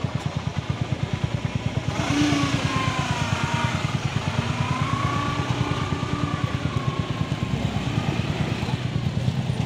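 Motorcycle engine running close by with a rapid, even putter. From about two seconds in the engine noise grows louder and rougher, with tones that rise and fall.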